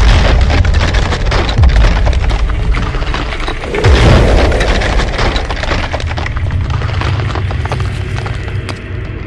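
Sound effect of a concrete wall cracking and bursting apart: deep booms at the start, about a second and a half in, and the loudest around four seconds in, with rubble crumbling and clattering that thins out toward the end.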